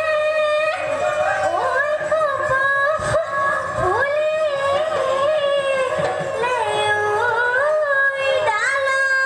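A high voice singing a Bihu song melody, holding long notes and sliding up and down between them.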